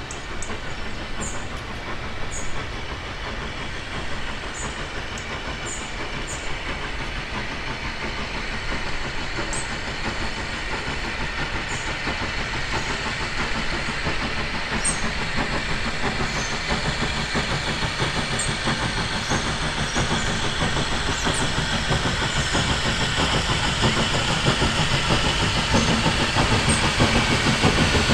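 Steam locomotive approaching along the track, its running noise growing steadily louder as it nears.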